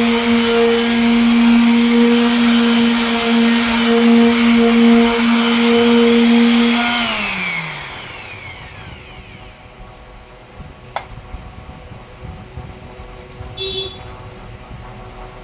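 Power sander running steadily with a high hum and hiss. It is switched off about seven seconds in and its pitch falls as the motor winds down. A sharp click comes a few seconds later.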